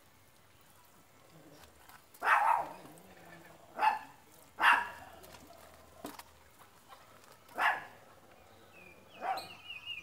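A dog barking five times at irregular intervals, with a short high warbling trill near the end.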